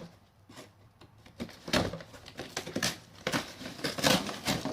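Packaging from a new metal detector's box being handled: irregular rustling and crinkling with short scrapes and knocks.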